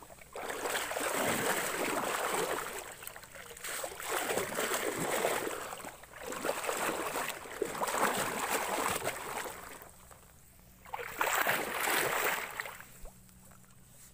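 Water sloshing as a person wades through shallow, muddy, grassy water, in four surges a couple of seconds apart, one with each few strides, going quieter near the end.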